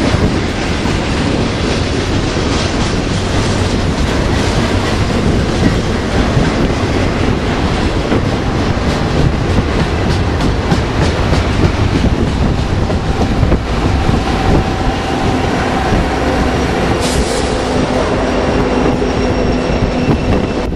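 A westbound BNSF double-stack intermodal train rolling past, its wheels running over the rails with repeated clicks. The rear distributed-power locomotives, a GE C44-9W and an EMD SD70ACe, go by, and a steady whine of several tones comes in about two-thirds of the way through.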